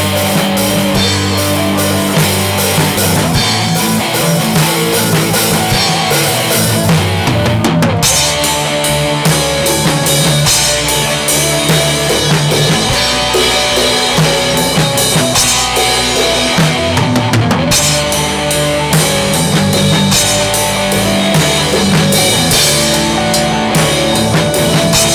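Live rock band playing an instrumental break with no singing: electric guitars carrying a melodic line over bass guitar and a steady drum kit beat.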